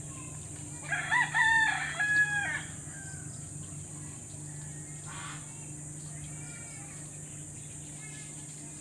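A rooster crowing once, about a second in, for about two seconds, with fainter calls following later.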